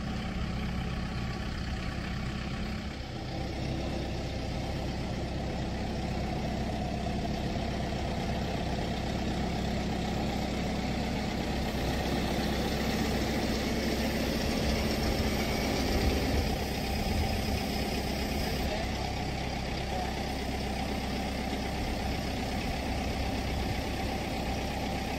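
Farm tractor with a front-end loader, its engine running steadily while the loader carries a raised load, a little louder toward the middle.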